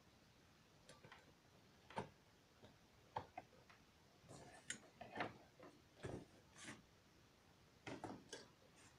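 Scattered light clicks and knocks as a cable reel with a plastic drum and metal frame is handled, turned over and set down, a dozen or so short sharp sounds at irregular intervals with quiet between them.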